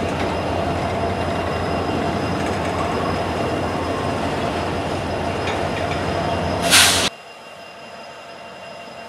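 Autorack freight cars rolling steadily past close by: a dense rumble of steel wheels on rail with thin, steady squealing tones. Just before seven seconds in there is a brief loud rush of noise, then the sound drops abruptly to a quieter, more distant train noise.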